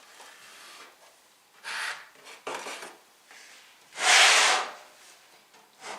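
Rubbing and scraping noises in three short bursts, the loudest about four seconds in.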